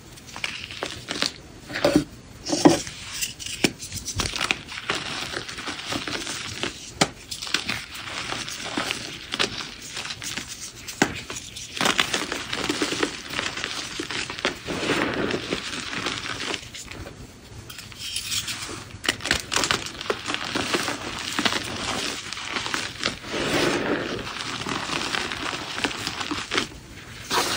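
Reformed gym chalk being crushed by hand, fingers squeezing dusty, powdery chalk chunks into a crunchy crumble. A dense run of crunches and crackles, with a few louder snaps in the first few seconds.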